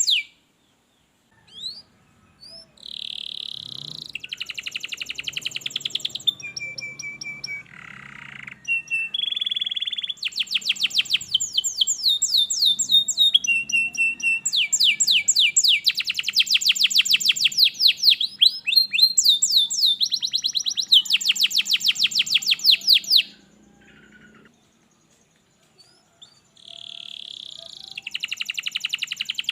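Domestic canary singing: phrases of fast repeated notes and rolling trills alternating with short held whistles. The song pauses for a few seconds near the end and then starts again.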